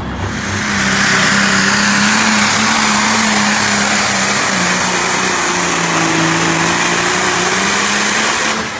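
Diesel pulling-tractor engine at full throttle under load, hauling the sled in a loud, steady roar. Its pitch sags about halfway through as the load builds, then recovers.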